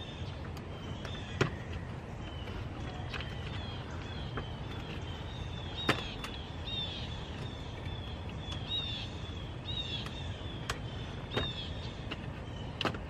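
Several sharp clicks and knocks from a hand tool and parts being worked in a car's engine bay, three of them louder, over a steady low outdoor hum, with birds chirping short repeated notes in the background.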